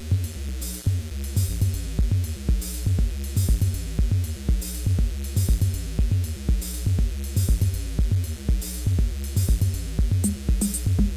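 Live electronic techno from a hardware setup of synthesizers and drum machines, MC-707 groovebox among them: a steady kick drum about twice a second under sustained synth bass, a repeating synth sequence and crisp hi-hats.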